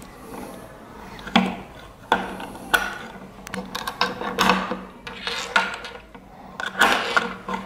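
Banana-plug test leads being pulled out of and pushed into the sockets of plastic battery holders while a second battery is wired into a series circuit: irregular clicks and short scraping rattles as plugs and leads knock on the holders and table.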